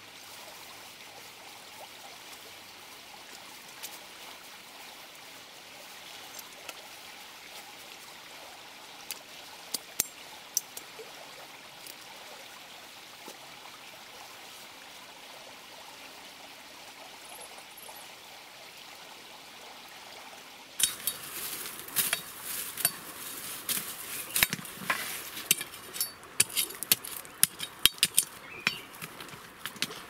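Steady rush of a shallow, rocky stream, with a few faint clicks. About two-thirds of the way through it cuts to louder, close crackling and snapping of plants being pulled by hand.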